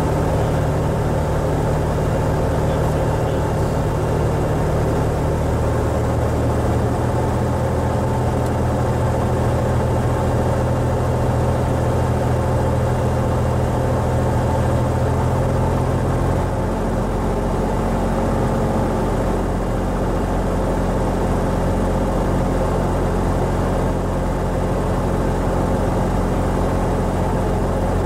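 Cessna 175 Skylark's geared six-cylinder Continental GO-300 engine and propeller droning steadily inside the cabin during the landing approach. The engine note shifts in pitch about five seconds in and again about sixteen seconds in, as power is adjusted.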